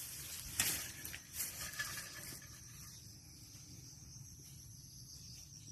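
Footsteps crunching and rustling through grass and brush during the first couple of seconds, then a quiet steady outdoor hiss with a thin, steady, high-pitched insect buzz.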